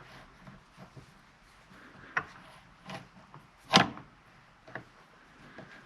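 A few separate metallic clicks and clunks from working a hand-cranked chainsaw chain rivet spinner and handling the chain on a workbench, about four distinct knocks with the loudest a little past the middle.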